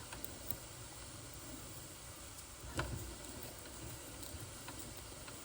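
Bing toy steam engine throttled right down on its regulator, almost stalling: a faint steady steam hiss with a few soft irregular clicks, and one louder knock about three seconds in.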